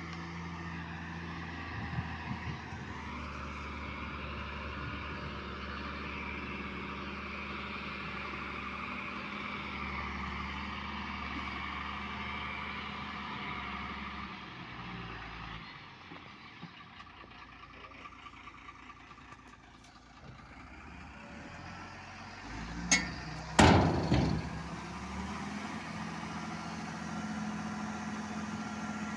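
Hyundai 210-7 hydraulic excavator's diesel engine running steadily with a hydraulic whine, going quieter for a few seconds past the middle. Two sharp, loud knocks come about three quarters of the way through.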